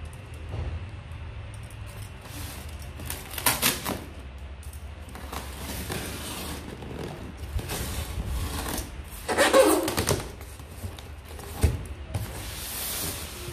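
Hands rubbing and pulling at the plastic film wrapped around a styrofoam box, in separate bursts of rustling and scraping, with one sharp tap a little after the middle. Near the end a knife works at the wrap in a hissing scrape.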